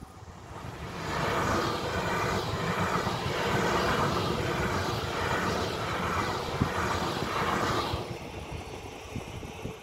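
A DB Regio electric multiple unit passing at speed: wheel and rail noise builds as it approaches and stays loud with a repeating rise and fall as the carriages go by. It fades away about eight seconds in.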